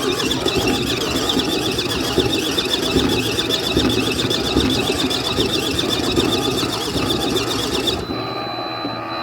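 Ucclife 1.5 kg mini washing machine running with a fast rough churning from its motor. About eight seconds in the sound changes abruptly and turns thinner, leaving a steady high whine.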